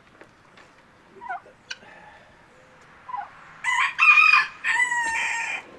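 A rooster crows once, a drawn-out call in several parts starting about three and a half seconds in, after a couple of short, quieter bird calls.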